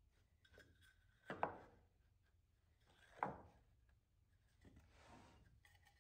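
Quiet handling of poplar strips on a plywood crosscut sled: two sharp wooden knocks a little under two seconds apart as the strips are set and pushed into place, then a softer sliding rub.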